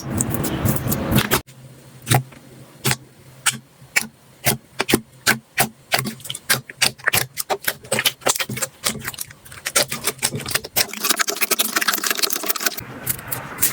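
Slime being squeezed and poked, making a run of sharp clicks and pops a few a second, with denser crackling near the end. The sound changes abruptly about a second in and again near the end.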